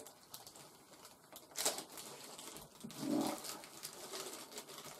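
Faint rustling and handling of packaging as a wrapped part is opened, with a brief crinkle about a second and a half in. About three seconds in there is a short, low voice-like sound.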